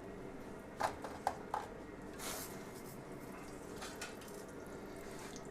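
A few light clicks and knocks of pans and kitchen utensils, about a second in and again near four seconds, over a faint steady kitchen background.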